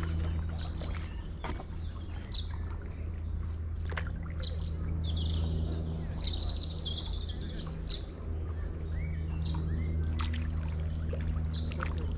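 Songbirds singing, with many short chirps and trills throughout, over a steady low rumble.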